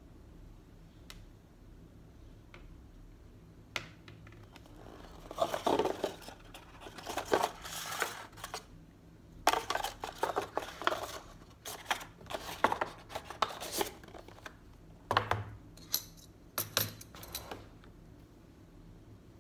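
White cardboard packaging of a Samsung Galaxy Tab S6 Lite being handled: the paperboard insert and box parts slide and scrape against each other in runs of rustling and clicking. There are a few sharper knocks near the end as pieces are set down on the desk.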